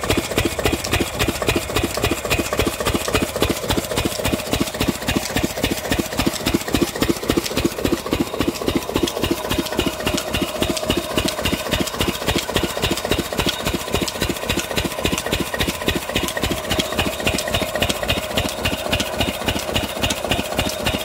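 Single-cylinder stationary engine with twin flywheels running steadily, belt-driving a well water pump, with an even thudding beat of about five to six firings a second.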